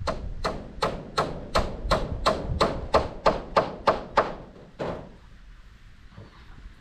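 Hammer blows in a steady rhythm, about three a second, some fourteen strikes in all, stopping about five seconds in.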